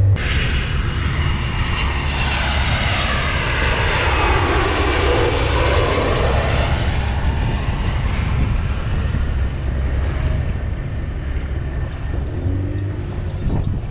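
Twin-engine jet airliner flying low overhead on its landing approach. A loud, steady engine roar sweeps past and tapers off near the end.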